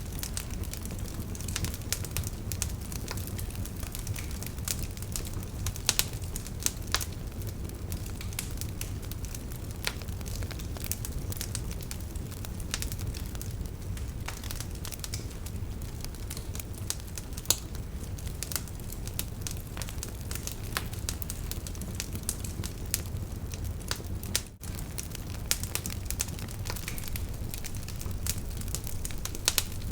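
Wood campfire burning, with a steady low rumble of flame under constant irregular crackles and sharp pops. The sound drops out for a split second about three-quarters of the way through.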